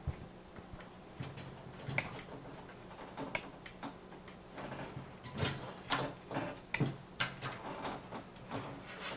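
Irregular small clicks and knocks of CPU cooler mounting hardware being handled and fitted onto a motherboard, coming thicker and louder in the second half.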